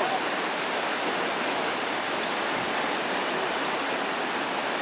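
Whitewater rapids of a canoe-kayak slalom course rushing in a steady, even roar of water.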